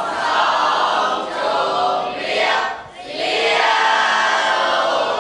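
A class of students reciting in unison, many voices in a sing-song chorus. It is the end-of-lesson farewell to the teacher, in two long phrases with a short break about three seconds in.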